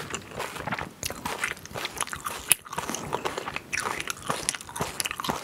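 Close-miked chewing and biting of food: a steady run of small, quick mouth clicks, with one sharper, louder click about two and a half seconds in.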